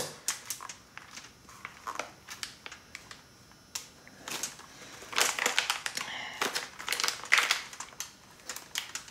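Plastic zip-top bag crinkling and crackling as it is squeezed by hand to pipe icing out of a snipped corner, the crackles growing thicker in the second half.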